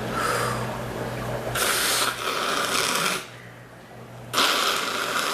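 A woman coughing hard with a chesty, raspy cough. After a short breath at the start come two long rasping bursts of about one and a half and two seconds.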